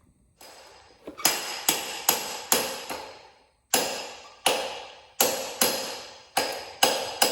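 About a dozen hammer blows on a metal motorcycle wheel axle, roughly two a second with a short pause partway through, each with a metallic ring. They are driving out an axle held fast by a stuck wheel bearing.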